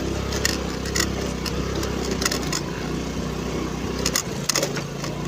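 Honda Navi's small single-cylinder engine running steadily, labouring on a steep off-road climb with a passenger aboard, where it struggles to pull. Its low note dips briefly about four seconds in, and scattered clicks and knocks sound throughout.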